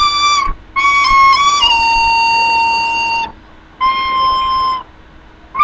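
Music: a solo flute-like wind instrument playing single held notes with short pauses between them. The longest note, held for nearly two seconds in the middle, is slightly lower than the rest.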